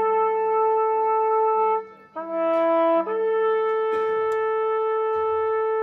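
Wind instruments holding a long, steady note. A little before two seconds in it breaks off, a different, higher note sounds for about a second, and then the first note comes back and is held.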